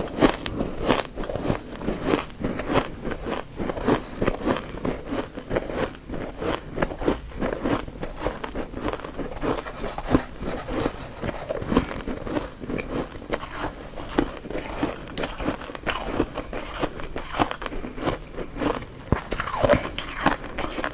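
Freezer frost being bitten and crunched in close-up, a steady run of crisp crunches several times a second.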